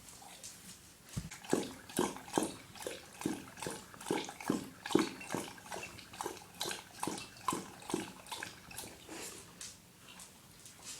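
Dog lapping water from a bowl: a quick run of wet laps, about two to three a second, starting about a second in and growing fainter after about eight seconds.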